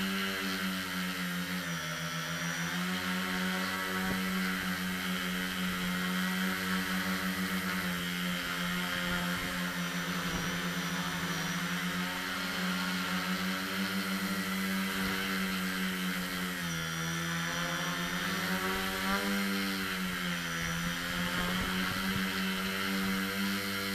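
Multirotor drone's electric motors and propellers whirring in flight, a steady buzzing hum over a hiss, dipping briefly in pitch about two seconds in and twice more near the end as the throttle changes.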